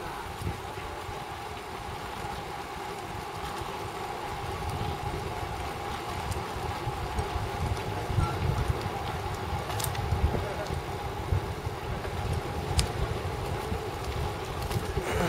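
Wind noise and road rumble on a bike-mounted camera as a road bike coasts downhill, with a faint steady hum over it. It slowly grows louder as speed builds, with a couple of brief clicks.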